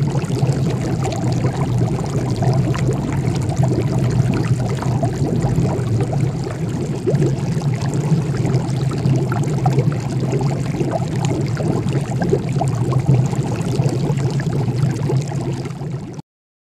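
Liquid boiling in a round glass flask on an electric heater: a steady rush of bubbling and popping over a low hum. It cuts off suddenly near the end.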